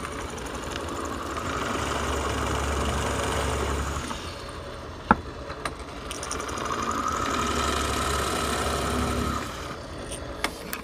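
Electric drill boring into a thick hardwood floor plank. It runs steadily in two stretches of about four seconds each, with a short pause and a sharp click between them.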